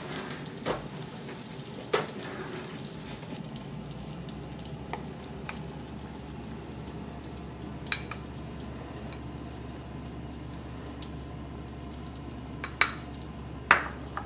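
A spoon scooping and stirring through a dressed orzo pasta salad in a stainless steel bowl, over a low steady hiss. A few sharp knocks of spoon and bowls come through it, the loudest two near the end.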